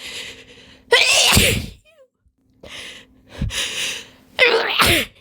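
A woman sneezing twice with a slight cold, each loud sneeze led in by breathy, gasping inhales: one sneeze about a second in and another near the end.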